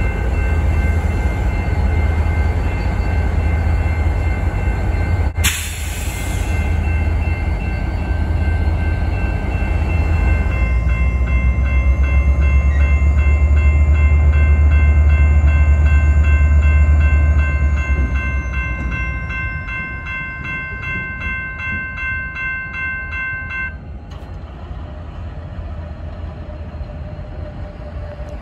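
Diesel locomotive engine rumbling, loudest around the middle and fading toward the end. There is a sharp knock about five seconds in. From about ten seconds in, a bell rings with steady regular strikes for roughly thirteen seconds, then stops abruptly.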